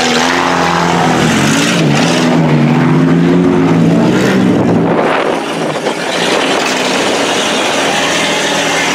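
Demolition derby car engines running and revving as the cars drive out through deep mud, the engine pitch rising and falling unevenly for about the first half and then settling.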